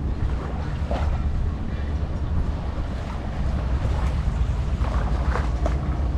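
Wind buffeting the microphone in a steady low rumble, over the wash of sea surf on the beach.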